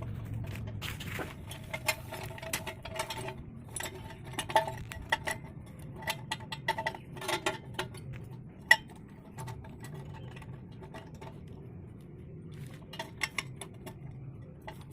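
Steel parts being handled and fitted together: irregular small metallic clinks and knocks, with one sharper knock about nine seconds in.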